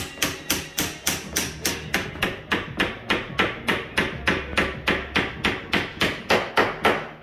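Hammer tapping a bent hinge pin back down into a door's top hinge: an even run of quick metal taps, about four a second, stopping just before the end. The bend in the pin makes it bind, so it has to be driven home.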